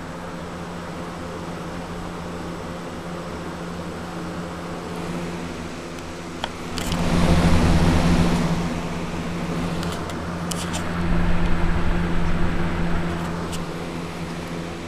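Electric fan running: a steady motor hum under a rush of moving air that grows louder twice, about seven and eleven seconds in.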